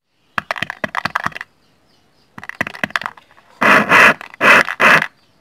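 An electret microphone capsule being tapped and scratched by fingers, picked up and played loud through a homemade amplifier and small loudspeaker: two runs of quick sharp clicks and scratches, then four louder noisy bursts, each about half a second long.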